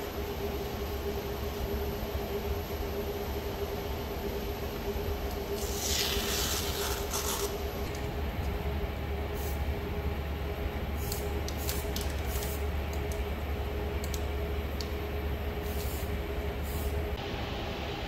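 Steady low mechanical hum with a faint constant tone, cutting out about a second before the end. A hiss of about a second and a half comes about six seconds in, followed by several brief hisses.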